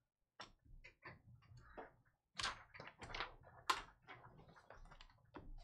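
Faint, scattered clicks and light taps of things being handled at a desk, with a cluster of sharper clicks around the middle.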